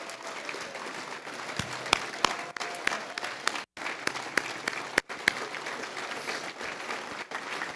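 Banquet audience applauding: a dense, sustained patter of many hands, with a few sharp, louder claps standing out close by. The sound drops out for an instant about halfway through.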